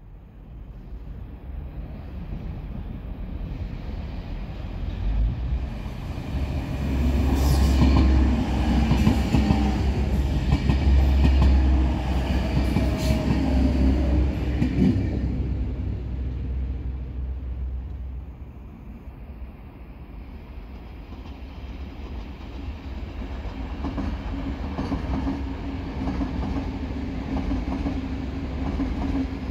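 A DB Class 420 electric multiple unit runs past close by, with an electric motor whine and its wheels clattering over rail joints. It is loudest in the middle and fades after about 15 seconds. Near the end a second electric train, an SBB Astoro tilting train, rumbles past on a farther track, with a steady low hum.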